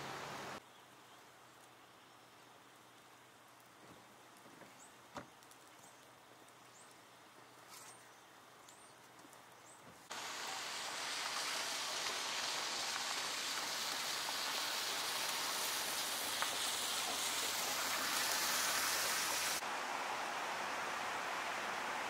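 Steady hiss of car tyres on a wet, slushy road as traffic passes, loud from about ten seconds in. Before that, only faint outdoor quiet with a few faint high chirps and a single click.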